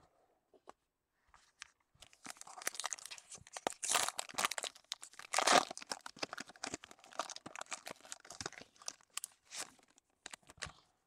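Baseball card pack wrapper being torn open and crinkled, with the cards rustling as they are pulled out. The loudest tearing comes about four and five and a half seconds in.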